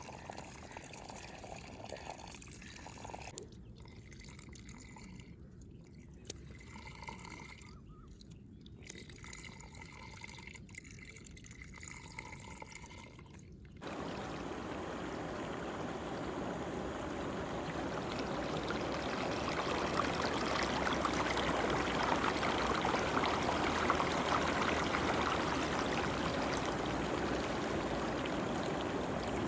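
Muddy water trickling and dripping with small irregular splashes, then about halfway through it switches suddenly to a louder, steady rush of flowing water that swells slightly toward the end.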